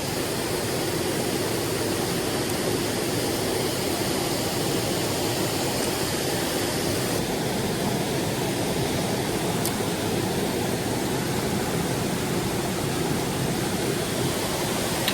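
Mountain stream water rushing steadily: an even, unbroken roar of flowing water.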